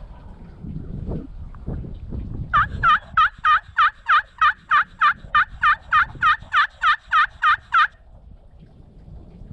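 A long, even series of about twenty turkey yelps, roughly four a second, starting a couple of seconds in and stopping after about five seconds, over wind rumbling on the microphone.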